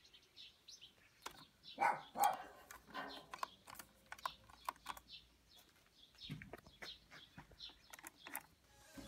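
Scattered clicks and taps of hands handling a coffee machine's plastic casing, front dial and side panel, with a louder sound about two seconds in. Faint bird chirps sound in the background.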